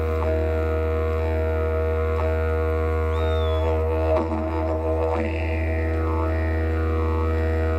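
Didgeridoo drone, a steady low fundamental with strong overtones. Midway the drone turns rough and broken for about two seconds, with a short high squeal, then goes on with slow wah-like sweeps in its tone.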